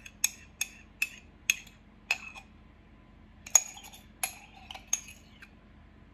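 Metal spoon clinking and scraping against a ceramic mug while scooping out whipped coffee. There are about five sharp clinks in the first two seconds, then three or four more after a pause of about a second.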